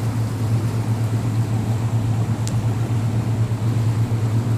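Motorboat engine running steadily at low speed, a constant low drone with the wash of the hull through the water.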